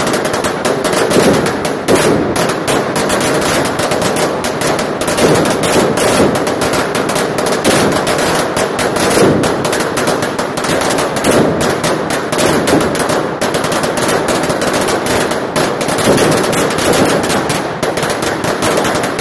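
A long string of firecrackers going off: loud, rapid, continuous bangs with no break.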